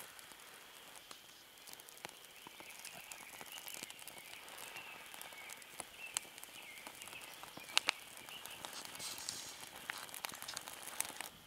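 Small fire of birch bark and kindling crackling faintly, with irregular small snaps and a couple of sharper pops about six and eight seconds in.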